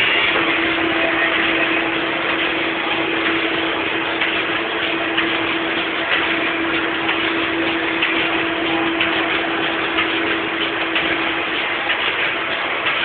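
Plastic bag-making machine running steadily: a constant hum with a rapid fine ticking over it.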